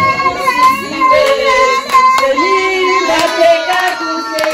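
Women singing a Xhosa song together, several voices holding long notes, with scattered hand claps.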